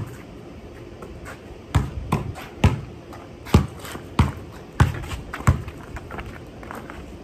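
A basketball dribbled on a concrete driveway: a string of sharp bounces, about one every two-thirds of a second, from about two seconds in.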